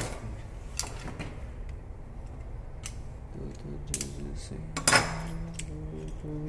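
Metal clinks and light knocks from a refrigeration flaring tool being handled: the steel flaring bar and yoke clattering as the copper tube is clamped and the yoke is fitted. The loudest knock comes about five seconds in.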